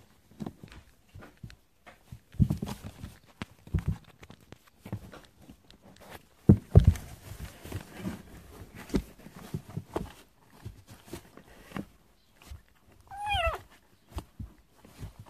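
Kittens scuffling and bumping about, making scattered soft thumps and scuffs, with one short kitten meow near the end.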